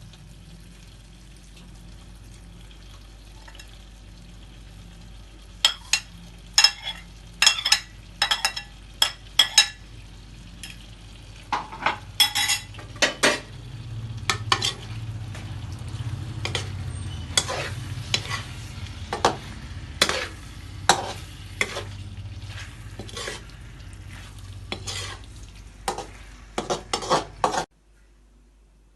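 Chicken jalfrezi sizzling in a pan while being stirred, with a spoon or spatula repeatedly clinking and scraping against the pan. The stirring starts a few seconds in and goes on in quick irregular strokes, then all sound cuts off abruptly near the end.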